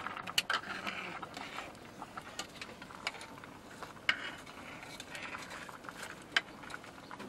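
Wood cooking fire crackling under a cast-iron pot: irregular sharp cracks and pops, a few of them louder, over a faint hiss.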